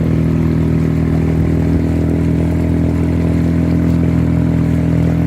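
An engine running steadily at a constant speed, an even low hum with no change in pitch.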